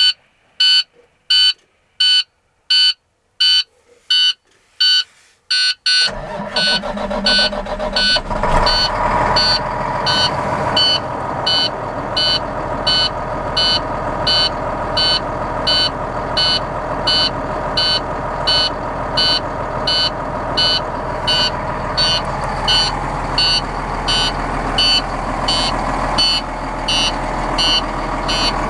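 A truck's warning beeper sounds steadily, a bit under twice a second, with the key on. About six seconds in, the International 7600's diesel engine starts and keeps running under the beeping.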